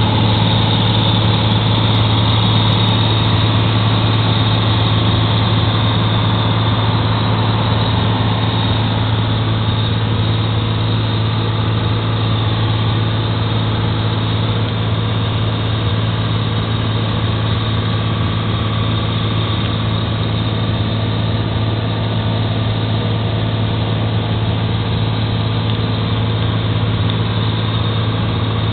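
Steady cabin drone of a light aircraft's engine and propeller in cruise flight: a constant low hum that holds one pitch throughout, under a steady rush of noise.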